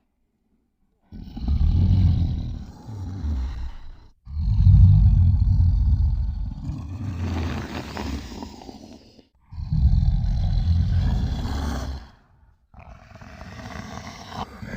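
Kothoga creature sound effects: four deep growling roars one after another, separated by short breaks, the last one quieter.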